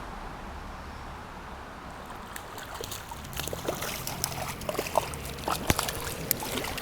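Water splashing and dripping in quick irregular bursts from about two seconds in, as a hooked brown trout is brought in and handled at the surface, over a steady hiss of flowing river water.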